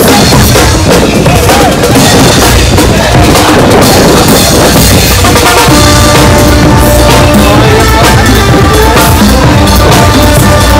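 Loud marching band playing: bass drum and snare drum keep a steady beat, and the brass comes in with held notes about halfway through.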